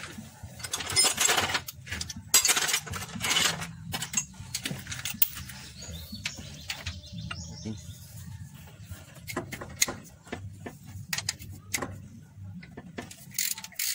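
Ratchet wrench clicking in quick bursts as bolts are undone on the timing gears of an Isuzu 4BE1 diesel engine, then scattered clinks of metal tools and bolts.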